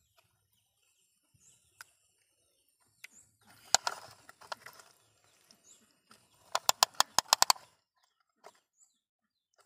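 Muddy plastic toy construction vehicles being handled in wet mud: a soft squelchy scrape with a sharp knock about four seconds in, then a fast run of about ten sharp plastic clicks lasting about a second. Faint bird chirps sound in the background.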